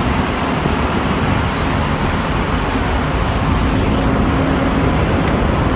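Concarril NS-88 metro train running between stations, heard from inside the car: a steady loud rumble of wheels and running gear. A faint steady hum rises above it from about two to five seconds in, and there is a short click near the end.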